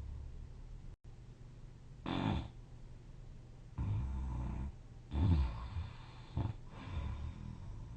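A sleeper snoring in an uneven rhythm. Short loud snorts come a few times, with a longer low rumbling snore between them.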